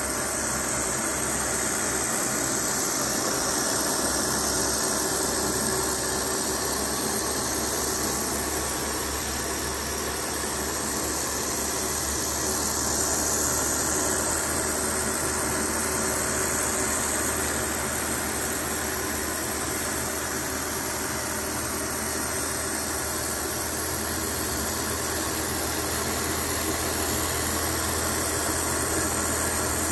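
Model 16-cylinder swashplate Stirling engine running at a steady speed: a continuous mechanical whir over a high hiss, with its burner flames lit under the cylinders.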